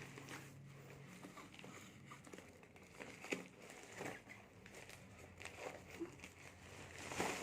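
Faint rustling and crinkling of a delivery parcel's plastic packaging being handled, with a few soft scattered ticks and knocks.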